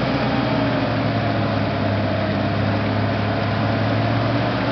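An off-road 4x4's engine running steadily, a low even drone with no revving.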